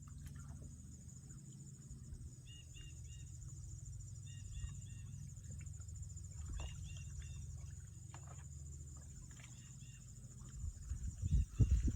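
A bird chirping in short runs of three or four quick high notes, repeating every couple of seconds over a steady low rumble. Louder knocks begin near the end.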